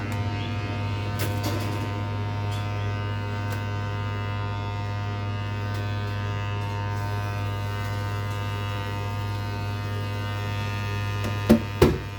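Washing machine running, a steady electric hum with many overtones. Near the end come two sharp knocks in quick succession.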